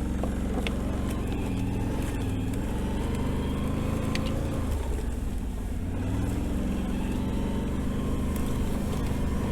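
Can-Am Renegade 1000 ATV's V-twin engine running under way, the revs rising and falling several times as the throttle is worked.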